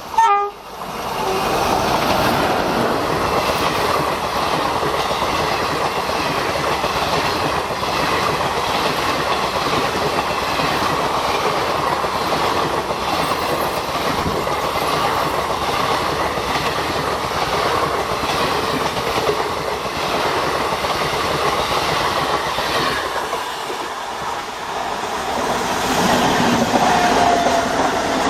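Maharashtra Sampark Kranti express train passing at speed, about 100 km/h. The locomotive goes by at the very start with a loud burst and a short falling tone. Then the coaches stream past with steady rushing and rapid clickety-clack of the wheels over the rail joints.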